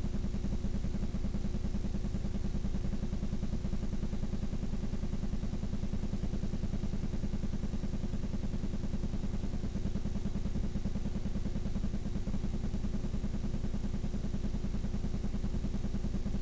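Steady low engine hum at constant speed, with no change in pitch.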